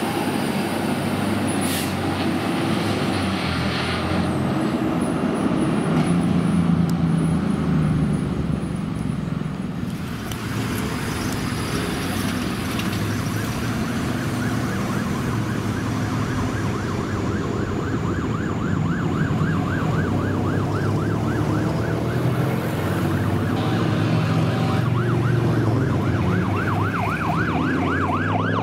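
Diesel engine of a fire engine running as the pumper drives close past. After that a second fire engine approaches with its electronic siren on a fast, rising-and-falling yelp that grows louder from midway.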